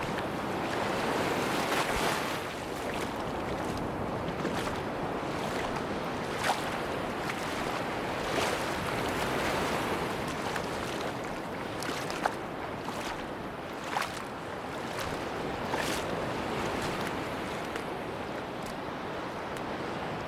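Sea waves washing onto a beach in a steady, gently swelling rush, with a few short sharp ticks over it.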